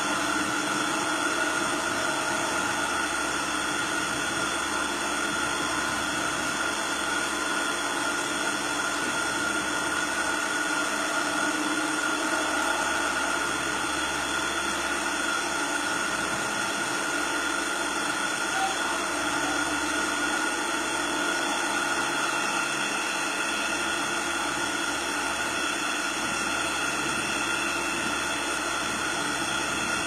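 Motorised hospital operating table's drive running with a steady hum as the tabletop tilts.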